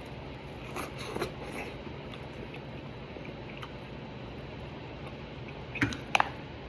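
A person chewing food over a steady low hum, with a few sharp clicks about a second before the end.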